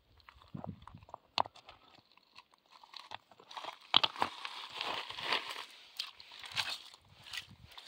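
River stones knocking together and wet gravel crunching as a large stone is set down among pebbles in shallow water and a hand works through them. There is a sharp knock about a second and a half in and another about four seconds in, then steady gritty crunching with many small clicks.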